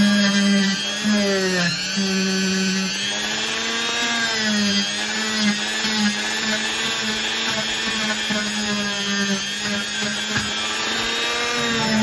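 Handheld rotary tool with a pressed-cotton polishing wheel running against a Zippo lighter insert's chimney. It gives a steady high motor whine whose pitch dips and recovers a few times as the wheel is pressed onto the metal.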